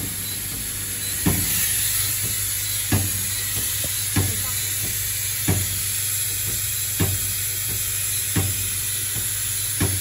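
Automatic corner-connector screw assembly machine running: a short, sharp mechanical clack about every one and a half seconds, eight in all, over a steady hiss.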